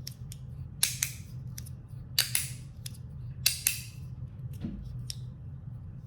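3D-printed plastic magnetic fidget slider being slid back and forth: three sharp clacks, each a quick scrape and snap as the magnets pull it into place, about a second apart, with a fainter one near the end.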